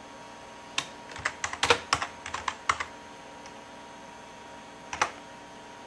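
Computer keyboard typing: a quick run of about eight keystrokes typing a short command, then after a pause a single key press, the Enter key, near the end.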